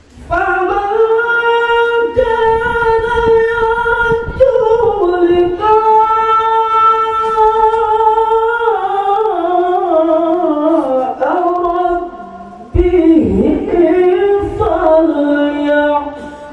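A man reciting the Qur'an in melodic tilawah style into a microphone, one unaccompanied voice. He holds long ornamented notes, and the melody steps downward through the middle of the phrase. He pauses briefly for breath about 12 seconds in, then starts a new phrase.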